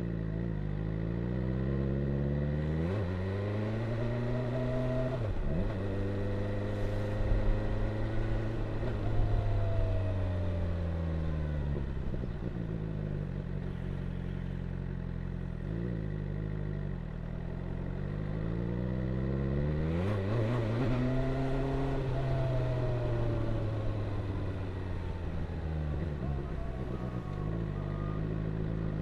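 BMW S1000R's inline-four engine accelerating hard, its pitch climbing and dropping at quick upshifts, then falling away as the throttle is rolled off. This happens twice, with steadier cruising in between.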